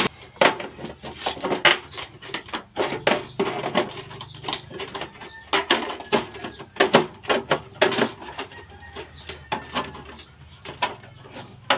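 Tin snips cutting a sheet-metal gutter piece, with irregular sharp snipping clicks and the rattle of the sheet.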